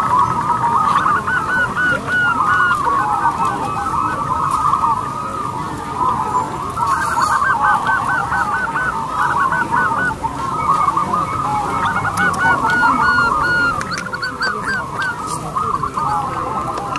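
Many caged zebra doves (perkutut) cooing at once: a dense, overlapping chorus of quick, rolling coo notes that never pauses.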